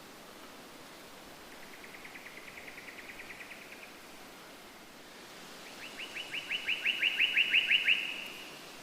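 A bird singing two trills of quickly repeated notes, about seven a second: a faint one, then a louder one about two seconds later. A steady hiss runs underneath.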